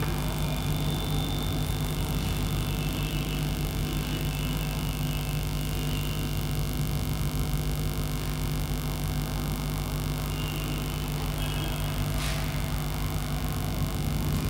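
Steady electrical hum with a low background noise, and faint rubbing of a duster wiping a whiteboard clean.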